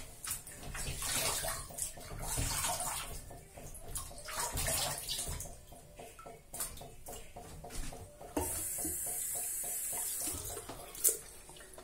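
Water splashing irregularly at a sink as shaving lather is rinsed off by hand. About two-thirds of the way through, a tap starts running steadily.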